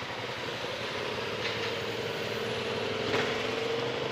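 Honda ADV 350 scooter's single-cylinder engine idling steadily while stationary, its pitch creeping up slightly in the second half, with a couple of light clicks.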